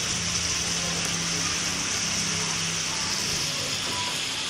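A pan of tomatoes and chilies frying down for sambal goreng, giving a steady hiss, with a low steady hum underneath.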